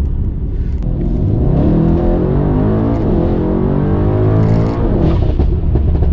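Stage 2+ tuned Mercedes-AMG E63 S (W213) 4.0-litre twin-turbo V8 accelerating hard, heard from inside the cabin. The revs climb, dip at a gear change about three seconds in and climb again. Just before five seconds the throttle lifts and the exhaust crackles.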